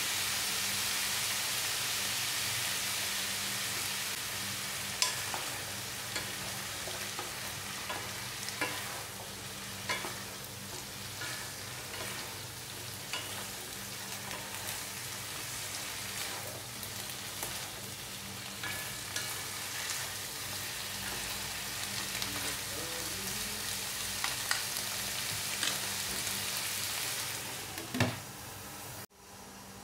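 Ground beef and bitter melon sizzling in a nonstick wok after a splash of soy sauce, stirred with a wooden spatula that clicks and scrapes against the pan now and then. Near the end a louder knock as the glass lid is set on, then the sizzle drops away.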